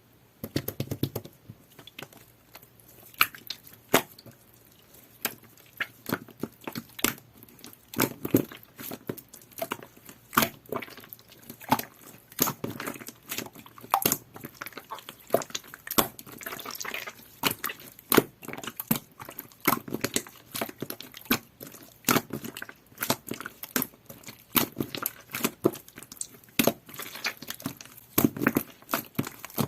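Jelly-textured slime being squished, poked and pulled by hand, with a steady stream of irregular sticky pops and clicks.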